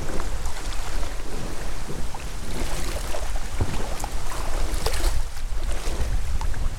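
Strong wind buffeting the microphone, with choppy water slapping and splashing around a kayak as it is paddled.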